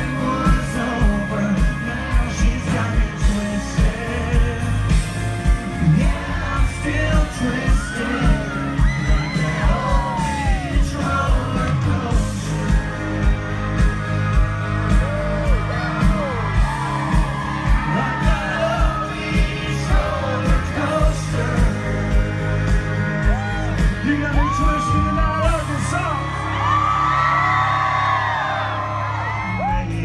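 Live country band music: a man singing into a microphone over a steady drum beat, with fans yelling and whooping. Near the end the drums drop out, leaving held notes under the singing.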